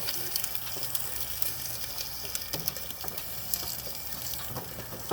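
Sorghum cane being crushed between the iron rollers of a horse-style cane mill: a steady crackling of stalks with a running, watery hiss as the juice comes out, over a steady low hum.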